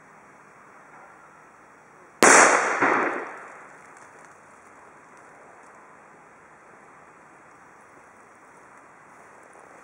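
A firecracker going off: one sharp, loud bang about two seconds in that dies away over a second or so.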